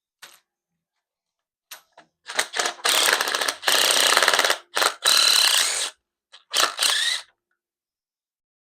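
A ratchet wrench clicking rapidly in several runs, with a few single clicks first, as bolts are backed out during an engine teardown.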